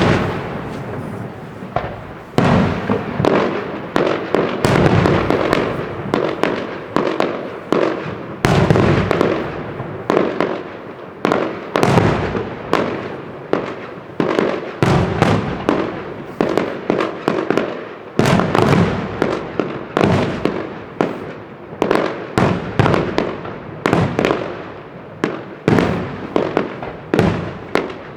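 Fireworks display: shells bursting in quick succession, roughly one bang a second or faster, each bang trailing off before the next.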